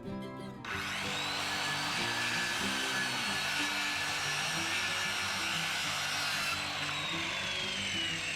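Power saw spinning up about a second in and cutting a new wooden deck board to length, its motor whine steady, then winding down with a falling whine near the end. Background music plays underneath.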